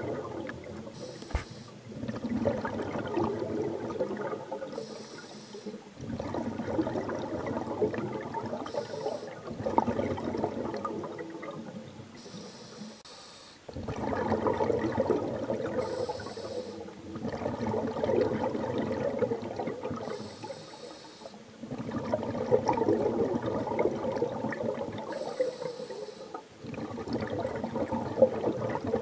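Scuba diver breathing through a regulator, heard underwater: a short hiss of inhalation about every four to five seconds, each followed by a long bubbling rush of exhaled air.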